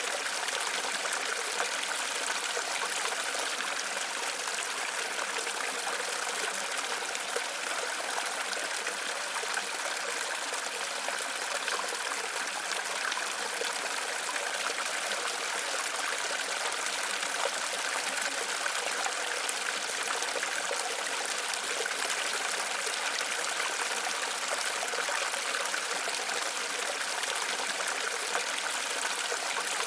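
Waterfall running steadily, an even hiss of falling and splashing water with little deep rumble.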